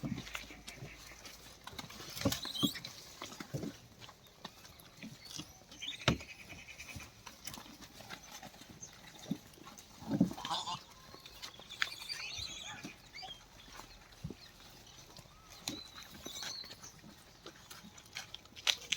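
A group of langur monkeys moving about and feeding on corn: scattered knocks and rustles, with a few short high chirps.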